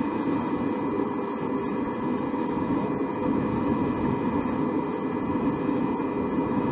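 Steady mechanical hum with an unchanging whine over a constant rushing noise.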